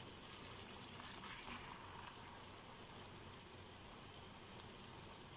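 Stuffed tinda gourds and minced-meat keema sizzling faintly in a kadhai on low heat, as the last of the sprinkled water cooks off.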